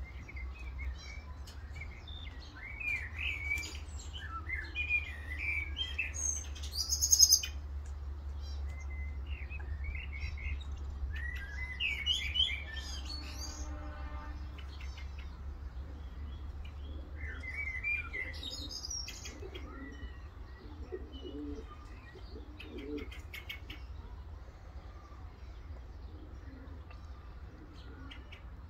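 Birds chirping in short, scattered bursts, loudest about seven seconds in, over a low steady rumble.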